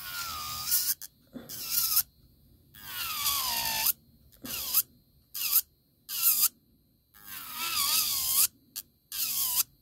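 Electric nail file (e-file) grinding down a glitter-covered acrylic nail: a high whine that comes in about nine short bursts with near silence between, its pitch sagging during the longer bursts.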